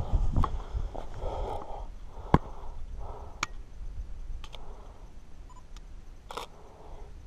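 Handling of a Nikon DSLR and its neck strap close to the microphone: a handful of sharp clicks and knocks, the loudest a little over two seconds in, with soft rustling in between.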